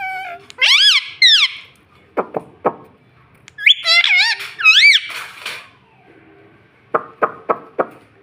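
Rose-ringed (ringneck) parakeet calling: loud, shrill, arching squawks in two bouts, each a couple of notes. Between the bouts, and again near the end, come quick runs of three or four sharp clicks.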